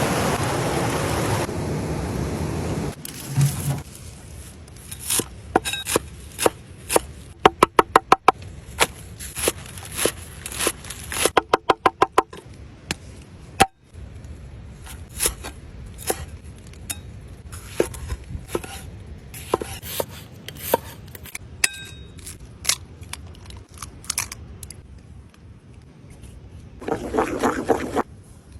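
A steady rushing noise for the first three seconds, then a long run of sharp knocks and scrapes of hard objects. There are two quick runs of rapid taps, about eight and eleven seconds in, and a short rasping scrape near the end.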